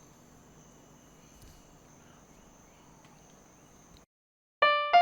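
Faint hiss with a thin, steady high tone that cuts off about four seconds in. Just before the end, a few piano notes are struck in quick succession as the music begins.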